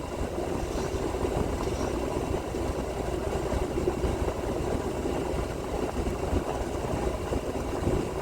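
Heavy truck's diesel engine idling with a steady low rumble.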